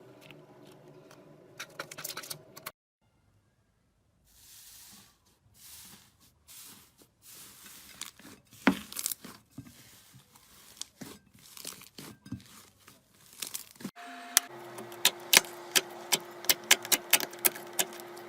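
Slime being squeezed and handled close to the microphone, giving sharp crackles, pops and crinkling crunches, in several short spliced clips; the crackles come thickest and loudest in the last few seconds.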